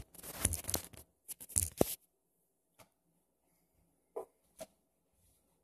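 Rustling and scraping as the recording phone is handled and set in place, for about two seconds, followed by a soft click and two light knocks.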